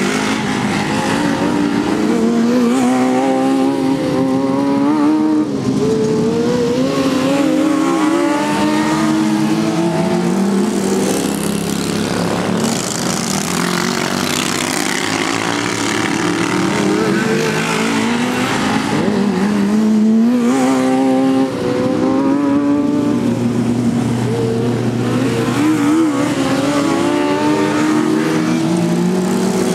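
Several racing lawn mowers' small engines running hard around a dirt track, overlapping. Their pitches rise and fall as the riders accelerate and ease off through the corners.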